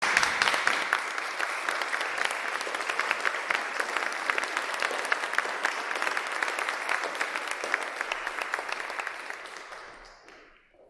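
Audience applauding, steady and loud, then dying away near the end.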